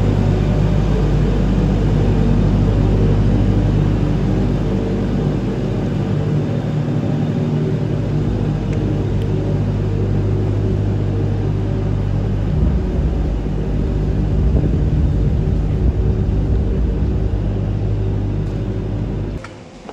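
Volvo wheel loader's diesel engine running steadily as it scrapes manure along the barn alley: a loud, even, low-pitched drone whose pitch shifts slightly about twelve seconds in.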